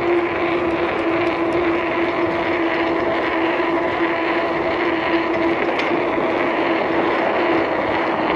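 Mountain bike rolling fast on asphalt: steady wind rush over the handlebar camera with a steady hum from the tyres on the road.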